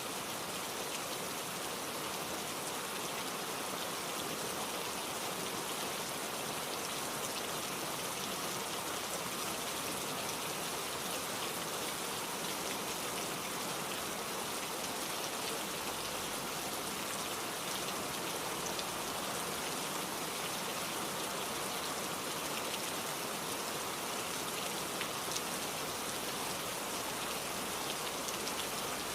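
Steady rainfall: an even hiss of rain with many fine drop ticks, pattering on a surface.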